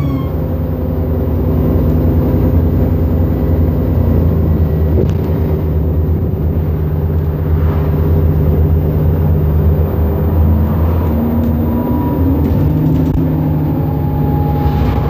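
Alexander Dennis Enviro400 double-decker bus under way, heard from inside the passenger saloon: a loud, steady low engine and drivetrain drone with occasional light rattles. About twelve seconds in, a thin whine comes in and holds a nearly steady pitch.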